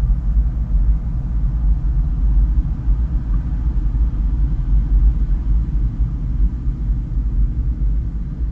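Deep, steady rumble recorded inside a giant hollow Sitka spruce driftwood log: the whole log shaking and resonating with the sound outside, full of low subharmonics.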